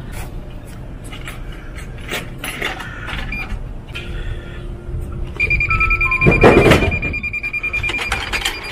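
DyDo drink vending machine dispensing: a steady electronic beep starts about five seconds in and holds, and about a second later a heavy clunk comes as the can drops into the delivery tray, followed by quick rattling.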